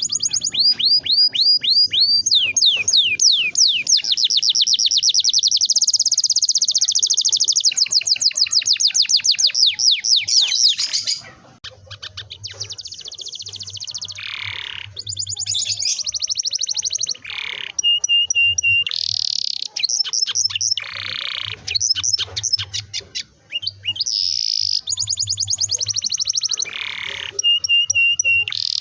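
Domestic canary singing: a long rolling trill of rapid repeated notes for about the first ten seconds, then shorter trills, rattles and sliding whistled notes with brief pauses between phrases.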